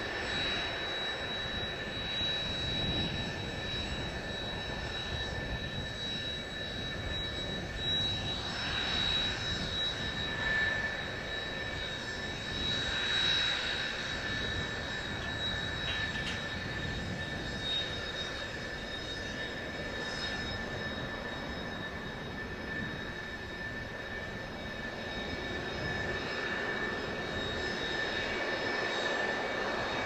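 Kawasaki T-4 trainer's twin turbofan engines running at ground idle: a steady jet hiss with a constant high whine.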